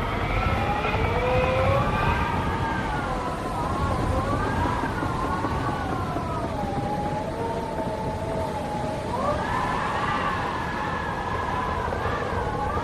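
Howling wind: a wavering, pitched moan that slowly rises and falls, dipping lower in the middle and climbing again near the end, over a steady low rumble of gusts.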